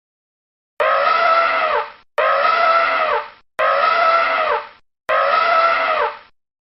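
A high squealing call sound effect, the same clip played four times in a row. Each call is about a second long, starts abruptly and drops in pitch at the end, with silence between.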